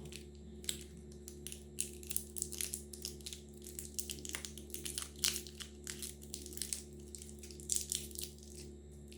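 Crinkling and crackling of a chocolate gift's wrapping being handled and opened: a rapid, irregular run of sharp crackles.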